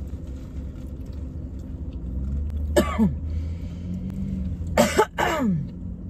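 A woman coughing twice, once about three seconds in and again, louder, about five seconds in, over the steady low hum of the car.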